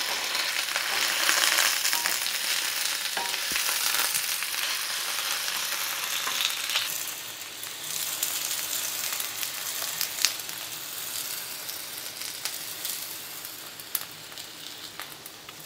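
Sliced potatoes sizzling in a frying pan, stirred with a wooden spatula at first, with a few light knocks against the pan. The sizzle eases off a little about halfway through.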